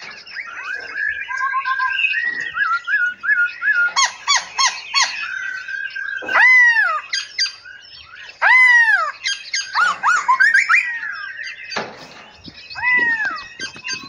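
Several caged songbirds calling and singing at once: overlapping chirps and quick trills, with a loud whistled call that arcs up and then down, heard three times. A single sharp knock comes shortly before the last whistled call.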